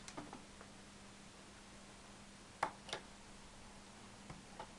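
Small plastic LEGO pieces being handled and pressed together: a few light clicks, the two loudest about a third of a second apart a little past the middle, over a faint steady hum.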